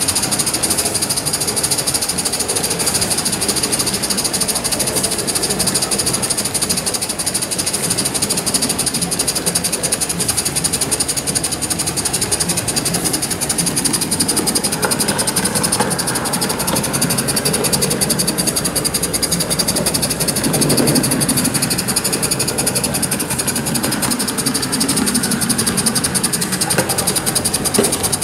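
Live-steam gauge 1 model of a Southern Pacific F-4 2-10-2 steam locomotive running along the track: a rapid, steady chatter of exhaust and wheels over a high hiss of steam.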